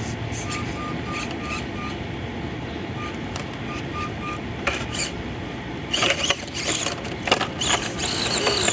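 Axial SCX24 micro RC crawler's small electric motor giving short repeated whines as the throttle is blipped, then louder scraping and clattering of the truck on rock from about six seconds in as it climbs and rolls over near the end.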